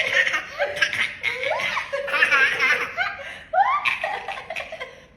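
High-pitched laughter in repeated rising-and-falling peals, dying away near the end.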